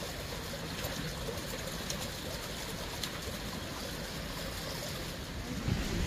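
Mountain stream running under and between ice and rocks: a steady rush of water. A low rumble comes in near the end.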